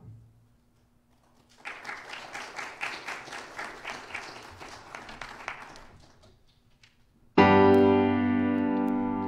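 A congregation applauding for about four seconds, dying away. Then, after a short pause, a piano chord is struck loudly and rings on, slowly fading.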